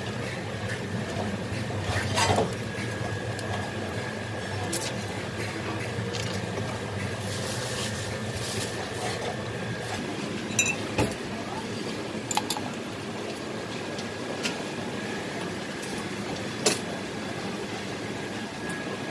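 Occasional clinks and knocks of glass cups and stainless steel mugs being handled at a coffee stall counter, a handful of separate hits, over a steady background hum.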